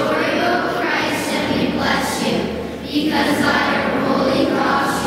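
Many voices together in a reverberant church, a group speaking or singing in unison.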